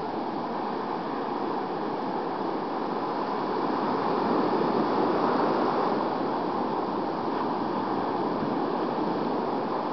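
Ocean surf breaking and washing up the sand in a steady rush, swelling a little about halfway through.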